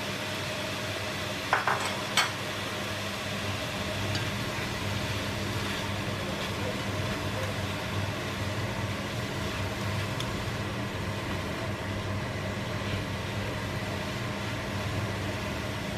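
Green beans and mushrooms sizzling in olive oil in a hot frying pan as they are stirred with a slotted spatula. There are two sharp clacks of the spatula on the pan about a second and a half and two seconds in, and a steady low hum underneath.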